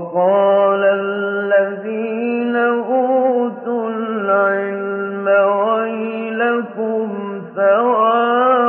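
A male voice reciting the Quran in the slow, ornamented mujawwad style: long held notes with winding melismatic turns, after a moment of silence. The sound is narrow and dull, with no treble, typical of an old recording.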